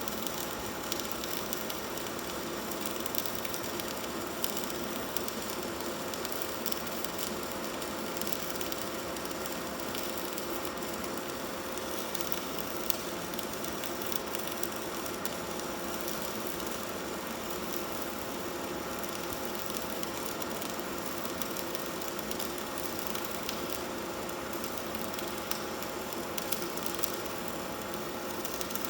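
Electric arc welding on a pipe: the arc crackles and hisses steadily, without a break.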